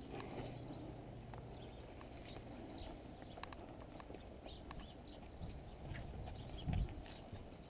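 Faint, irregular clicks and taps over a low rumble, with one louder low thump about seven seconds in.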